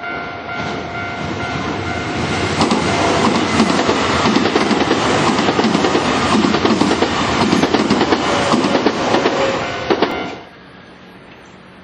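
Electric train passing over a level crossing, its wheels clattering over the rail joints, while the crossing's warning bell rings steadily. Both stop suddenly a little after ten seconds in.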